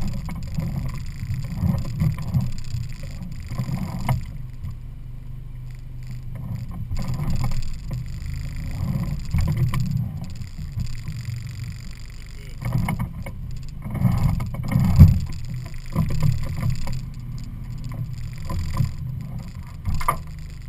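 Evinrude 50 hp E-TEC two-stroke outboard running at idle, a steady low hum, while the boat is nudged onto its trailer. Uneven low buffeting and thumps come over it, the loudest about fifteen seconds in.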